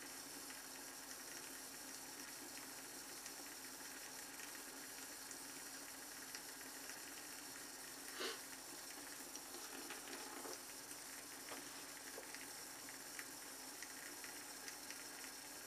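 Faint scratching of a shavette's half blade cutting through lathered beard stubble, in a few short strokes over a steady low hiss; a soft tick about eight seconds in is the loudest moment.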